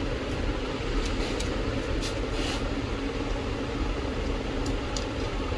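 Steady background hum and rumble, with a few faint clicks as wire connectors are unplugged inside an opened Canon LBP 2900B laser printer.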